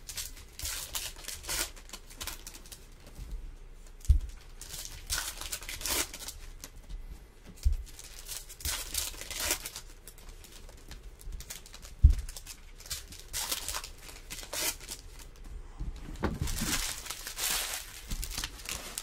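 Foil trading-card pack wrappers being torn open and crinkled by hand, in scattered rustling bursts, with a few dull knocks against the table.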